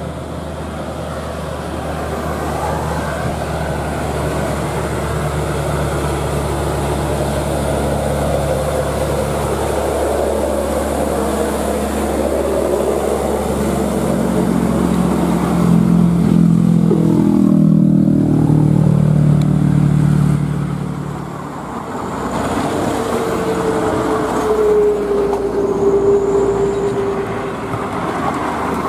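Diesel engine of a loaded three-axle Hino 500 cargo truck pulling uphill, growing louder as it approaches and passes about two-thirds of the way in, its pitch dropping as it goes by. After a brief lull, a second truck's engine approaches with a steady whine.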